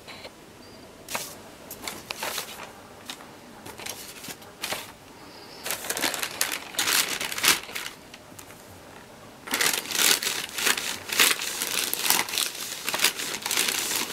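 A thin covering sheet crinkling and rustling in irregular bursts as it is handled and smoothed over painted fabric, with a clothes iron pressed and slid across it; the rustling is busiest in the last few seconds.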